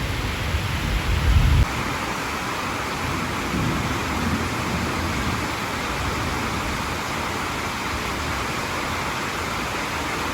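Steady hiss of heavy rain and rainwater. A low rumble under it for the first second and a half cuts off suddenly.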